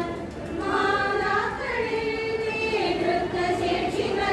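A group of women singing together in unison into a microphone, a slow melody of long held notes.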